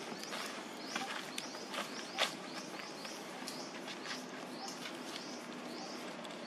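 A bird's short, high, rising chirp repeated about twice a second, with scattered light crackles and clicks of dry leaves and a twig, the loudest about two seconds in.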